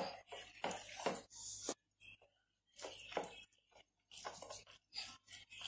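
Soft, irregular squishing and leaf rustling as fingers press sticky jaggery-and-rice-flour kottappam dough into a folded bay-leaf cone, in short bursts with brief pauses.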